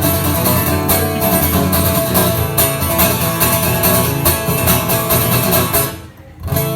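Live band playing the instrumental outro of a song, guitars over steady sharp hits, breaking off abruptly about six seconds in.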